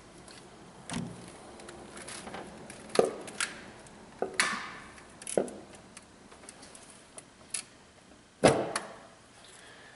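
Aluminium cylinder head of a Toyota 2AZ-FE engine being lowered by hand onto the engine block: a string of separate knocks and metallic clinks, a short scrape partway through, and the loudest clunk near the end as it settles into place.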